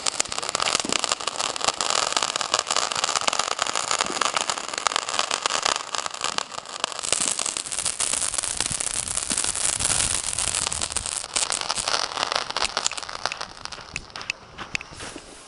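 Ground firework of the kind called a bug zapper going off: a dense, rapid crackling over a steady hiss of sparks, thinning out and getting quieter near the end.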